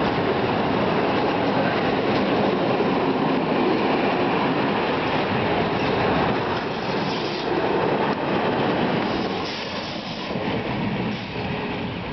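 Open freight wagons rolling past at close range, steel wheels running on the rails. The noise eases off in the last few seconds as the final wagon goes by.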